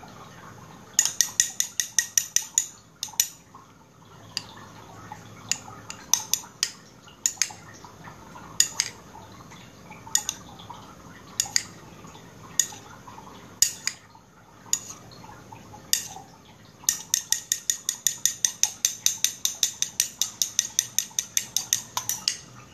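A utensil clinking against the side of a bowl while a thickening gel base for homemade aloe vera gel is stirred. There is a quick run of clinks about a second in, then scattered single clinks, then steady fast stirring at about seven clinks a second in the last several seconds.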